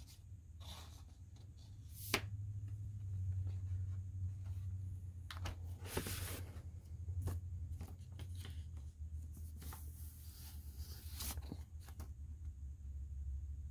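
Cardboard record jacket and paper inner sleeve handled by hand: rustling and sliding as a gatefold sleeve is opened and the inner sleeve is taken out, with a sharp tap about two seconds in and longer rustles around the middle and near the end. A steady low hum runs underneath.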